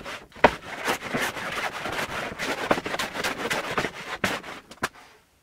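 Metal hand plane being pushed across a red oak tabletop to flatten it: repeated scraping, hissing strokes as it takes shavings, with several sharp knocks between them. The sound drops out abruptly near the end.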